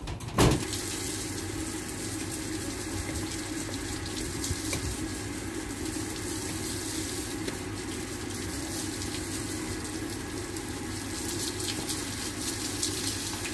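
Water from a garden hose spraying steadily onto a water buffalo's back and splashing on the brick floor, after a brief loud thump about half a second in.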